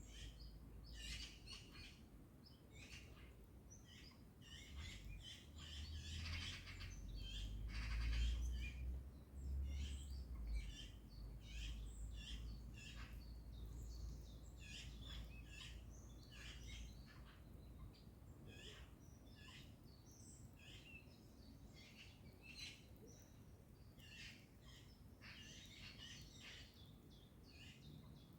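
Morning birdsong: many birds chirping and calling in a dense, overlapping mix of short high notes. A low rumble swells a few seconds in and fades after the middle.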